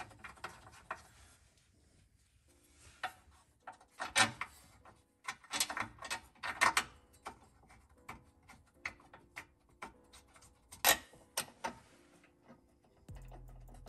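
Irregular metallic clicks, taps and scrapes as bolts are threaded by hand into a steel rear differential brace and the diff cover, the parts being worked to line up the holes. A steady low hum comes in near the end.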